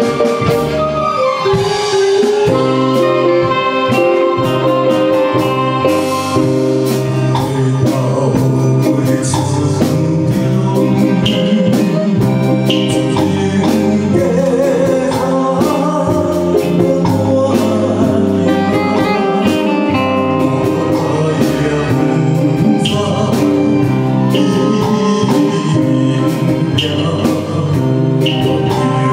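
A man singing into a microphone over a live ensemble of flutes, strings, keyboard and drums playing with a steady beat.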